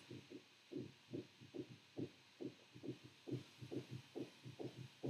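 Faint, rhythmic gulping of a person drinking, about two swallows a second.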